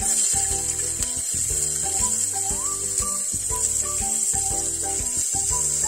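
Background instrumental music over a steady sizzle of chopped onion frying in hot oil with whole spices.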